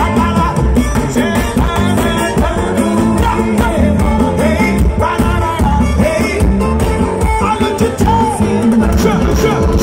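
Live forró band playing through a concert sound system, with a sung melody over a steady dance beat.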